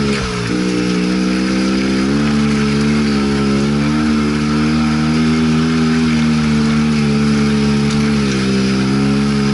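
Arctic Cat Wildcat side-by-side's engine running under way, heard from inside the open cab over a steady hiss. The engine eases off just after the start, picks up again about two seconds in, and drops back near the end.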